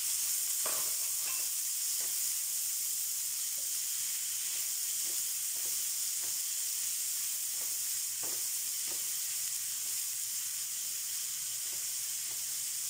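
Chopped onions, garlic and green chillies sizzling steadily in hot oil in a nonstick pan, with repeated short scrapes of a silicone spatula stirring them. The onions are being sautéed until they change colour.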